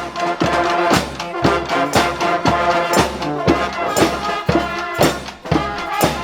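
Brass street band playing, with horns holding chords over a drum beat of about two strikes a second.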